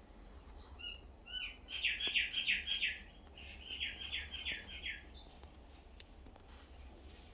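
A bird chirping: a few short notes, then two quick runs of repeated downward-sliding chirps, about five a second.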